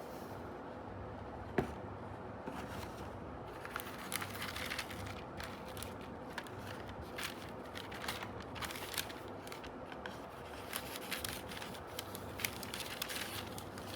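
Packaging being handled and opened by hand: scattered paper rustles, crinkles and small clicks, with one sharper click about one and a half seconds in.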